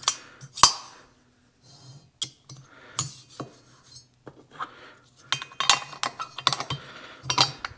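Ironhead Sportster cylinder head and a cut-off piston being handled on a steel holding fixture and workbench: a run of sharp metallic clinks, knocks and scrapes, busiest in the second half.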